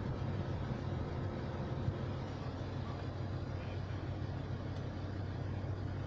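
Steady rush of a car's air-conditioning blower pushing air out of the dashboard vents at full flow, over a low steady hum from the idling engine, heard inside the cabin.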